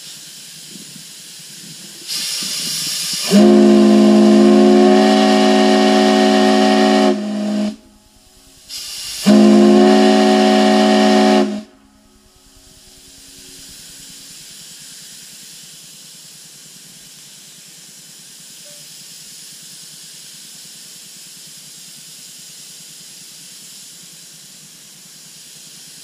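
8-inch Crosby chime whistle, the tugboat and small-ship type, blown on compressed air. A rush of air hiss comes first, then two blasts of a steady chord of several tones, the first about four seconds long and the second about two and a half. A faint steady hiss follows.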